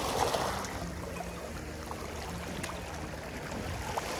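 Small sea waves washing and lapping against shoreline rocks, with a swell of wash about the start and a few faint ticks.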